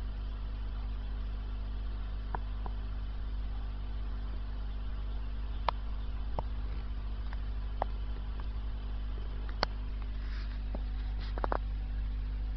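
Steady low hum of an aquarium's filter running, with a few faint sharp clicks scattered through it.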